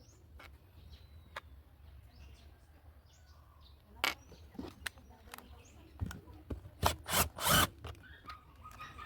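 Scattered clicks and knocks of hand tool work on screws and sheet metal, with a few short, louder bursts in the last third.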